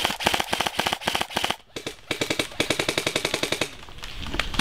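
Airsoft rifle firing rapid full-auto bursts, a fast even clatter of shots, with a brief break about a second and a half in and a lull near the end before firing resumes.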